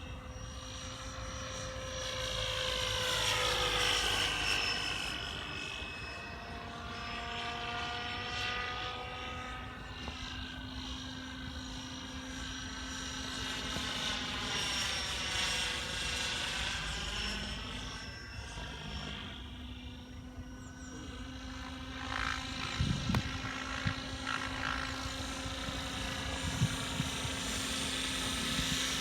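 Electric 12-cell RC helicopter in flight: a steady whine from the motor and rotor, with its higher tones sliding up and down in pitch and the level swelling and fading as it moves nearer and farther away.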